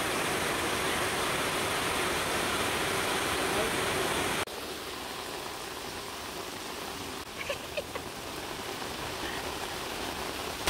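Heavy rain pouring down steadily. A little over four seconds in it drops suddenly to a softer, steady downpour.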